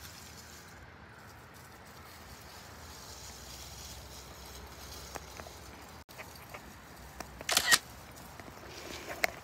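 Quiet outdoor background with a few faint rustles and ticks, then a loud, brief rustling scrape about three-quarters of the way in, and a sharp click near the end: handling noise from the phone being moved or its microphone being covered.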